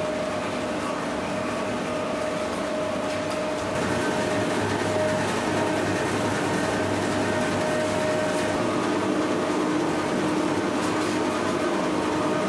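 Olive oil mill machinery running steadily: a continuous mechanical hum with a steady tone in it, getting slightly louder about four seconds in.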